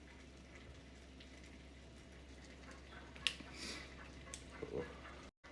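Faint handling sounds of food preparation over a low steady hum: one sharp click about three seconds in, then a couple of seconds of rustling and light knocks.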